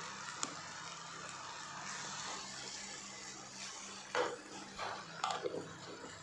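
Thick masala gravy with ghee frying in a non-stick pan, a steady low sizzle. In the last two seconds a wooden spatula stirs and scrapes through it, making several irregular scrapes and knocks.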